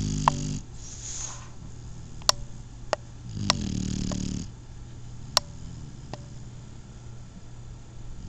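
Shar-Pei puppy snoring in its sleep: two long snores about three and a half seconds apart, with a breathy exhale about a second in. A few sharp short clicks fall between the snores.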